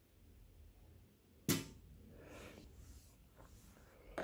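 A single sharp knock about one and a half seconds in, as a hand tool or skate part is set down on the tabletop, followed by faint handling rustle.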